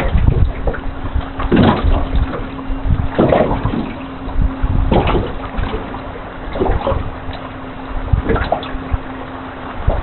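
River water lapping in a slow rhythm, one wash about every second and a half or so, over a faint steady hum.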